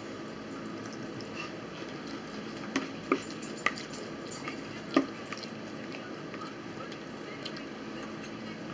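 A person eating: chewing, with a few sharp clicks between about three and five seconds in, the last one loudest.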